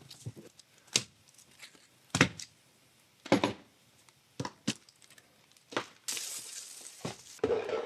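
Unboxing handling sounds: packed accessories set down on a wooden desk as a series of separate knocks and clicks, then a plastic bag crinkling for about a second and a half, starting about six seconds in.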